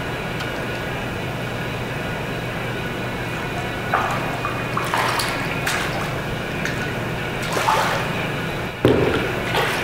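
A hooked crucian carp thrashing at the surface of an indoor fishing pool, splashing in several sharp bursts from about four seconds in, the loudest near the end, over a steady background hum.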